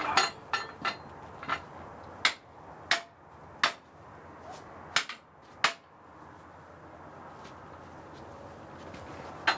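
Sharp metallic knocks and clanks as a log is set in place on a homemade bandsaw mill's bed, about ten in the first six seconds, irregularly spaced, a couple with a short ring. After that, only a low steady background until one more knock at the end.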